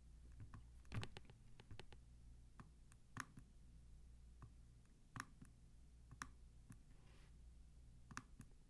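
Faint clicks from a laptop, about five of them scattered a second or two apart, over a low steady hum, with near silence otherwise.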